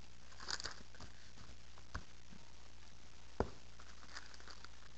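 Handling of a trading-card binder's plastic sleeve pages: a short crinkle of plastic about half a second in, a light tap near two seconds, a sharper knock about three and a half seconds in, then a few faint ticks. A low steady hum runs underneath.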